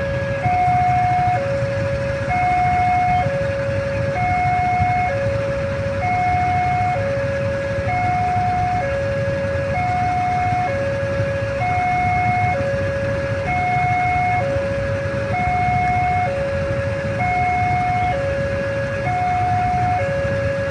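Railway level-crossing warning alarm sounding an electronic two-tone signal, a higher and a lower note alternating about once a second, to warn of an approaching train. Beneath it is a low steady rumble of waiting vehicles' engines idling.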